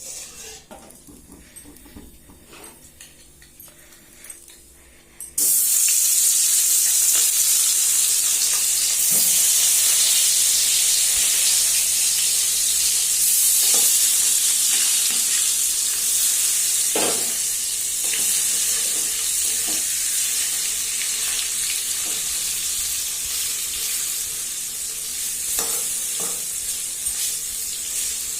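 Food hitting hot oil in a pan: after a few quiet seconds with light clicks, a loud frying sizzle starts abruptly about five seconds in and holds as a steady hiss that slowly eases, with occasional clicks of a utensil stirring.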